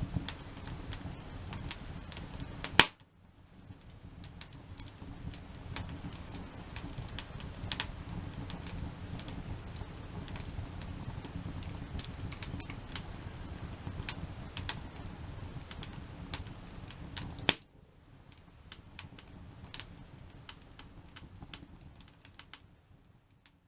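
Wood campfire built as a log-cabin stack, crackling and popping irregularly over a low rush of flame. There are two louder sharp snaps, about 3 s and 17 s in, and each is followed by the sound dropping suddenly. The sound cuts off just before the end.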